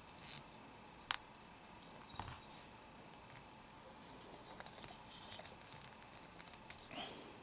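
Faint rustling and small ticks of fingers handling monofilament fishing line and a small hook while tying a clinch-style knot, with one sharp click about a second in.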